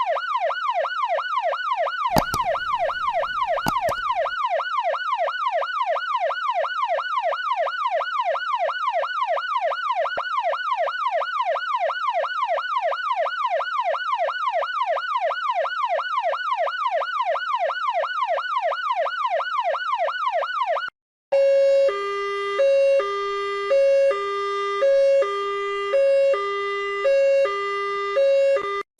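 Emergency-vehicle electronic siren in a fast yelp, sweeping up and down about three times a second, with a brief low rumble a couple of seconds in. About two-thirds of the way through it cuts to a two-tone hi-lo siren alternating between two pitches about once a second.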